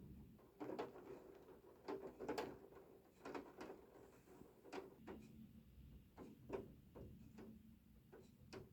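Scattered light taps and clicks at an irregular pace, a couple a second, some louder than others.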